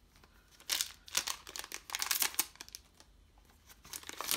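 A Final Fantasy TCG booster pack wrapper being torn open by hand. A rapid series of rips and crinkles runs for about two seconds, then comes another short rustle near the end.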